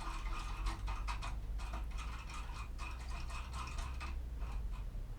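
Foil impression pick being worked hard back and forth in a KALE six-pin cylinder lock: rapid, irregular metallic clicking and scraping.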